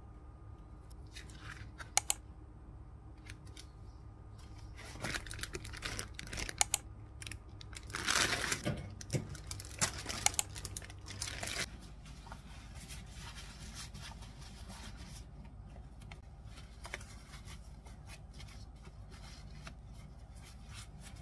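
Plastic produce bags and wrap crinkling and rustling as groceries are handled on a countertop, loudest about eight seconds in, with a few sharp knocks. Softer rustling of the fabric shopping bag near the end, over a low steady hum.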